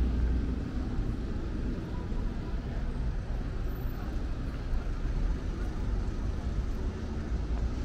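Steady city street ambience: a low rumble of passing traffic.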